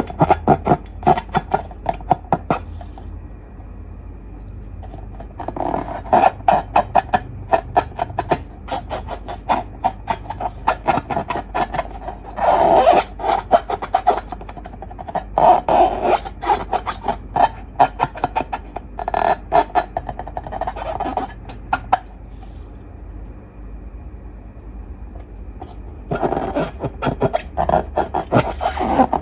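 Slime being squeezed and worked, with sticky crackling and popping in bursts and a couple of quieter pauses.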